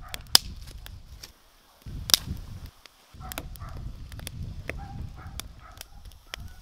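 Dry wooden sticks snapped by hand: two loud sharp cracks, about a third of a second in and about two seconds in, with smaller crackles and clicks between them, over a low rumble.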